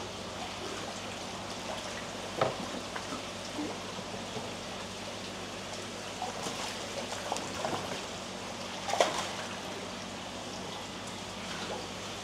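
Pond water trickling and splashing as koi are handled, over a steady low hum. Sharper splashes come about two and a half seconds in and again about nine seconds in, with a run of smaller ones just before the second.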